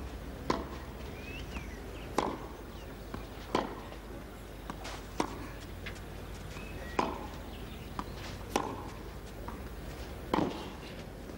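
Tennis rally: a racket strikes the ball seven times in a regular back-and-forth, about one hit every second and a half or so, over steady crowd and broadcast background.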